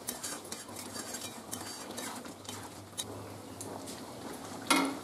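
A metal spatula stirring a thin yam and potato curry in a metal kadai, with irregular clinks and scrapes against the pan. A louder knock comes near the end.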